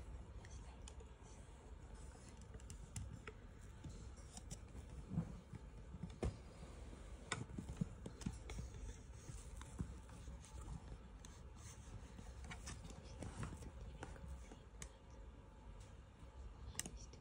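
Quiet room with a low steady hum and faint, irregular clicks scattered through it.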